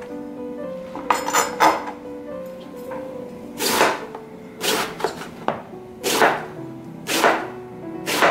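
Chef's knife slicing through eggplant on a plastic cutting board, each cut ending in a sharp knock. A quick run of a few cuts comes about a second in, then single slices about once a second. Background music plays throughout.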